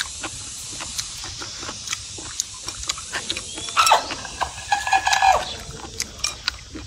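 Wet chewing and lip-smacking of a person eating spicy rice noodles: many short clicks over a steady hiss. About four seconds in there is a louder sharp sound, followed a second later by a short pitched sound.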